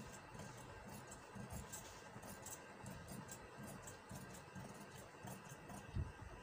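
Scissors snipping through fabric, a faint run of short crisp snips as the excess cloth is trimmed from a sewn collar band seam. A dull thump about six seconds in.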